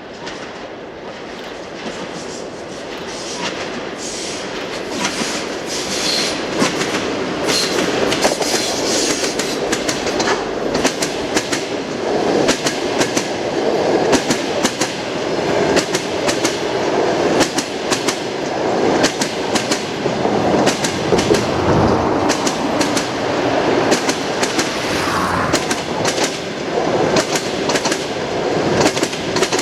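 Passenger train coaches rolling past on jointed track, their wheels knocking rhythmically over the rail joints in a steady clickety-clack. The sound grows louder over the first several seconds, then stays loud.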